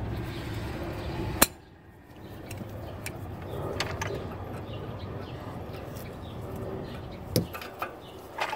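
Hand tools being handled at the wheel hub: a breaker bar and socket being fitted to the rusted 19 mm brake caliper bracket bolts, with a sharp metallic click about a second and a half in and a smaller one near the end.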